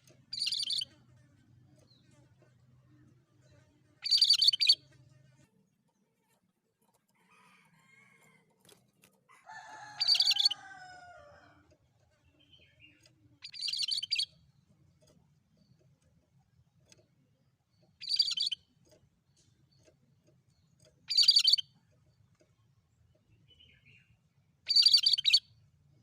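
Cucak kerinci, a bulbul, singing: short, bright chirping phrases repeated every three to four seconds, seven in all, with one longer, lower call falling in pitch about ten seconds in.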